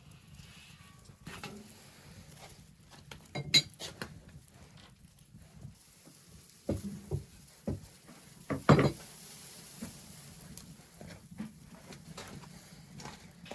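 Cookware knocking and clattering, a few short knocks and clinks scattered through, the loudest about two-thirds of the way in.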